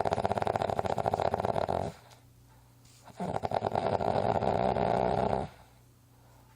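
An odd-sounding snore with a fast rattle, heard twice: a snore of about two seconds, a quiet pause, then a second snore of about two seconds.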